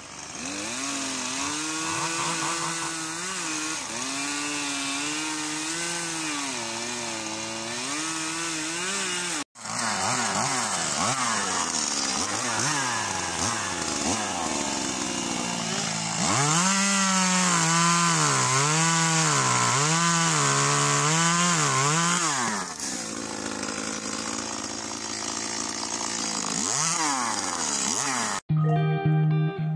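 Small chainsaw running and cutting into olive branches, its pitch wavering up and down as it cuts. There is a brief break about a third of the way in. Near the end the saw stops abruptly and guitar music takes over.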